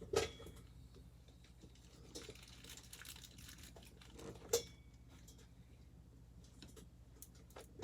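Faint ticks and taps of a screwdriver and small screws against a computer case while the motherboard is screwed down onto its standoffs, with one sharper click about four and a half seconds in.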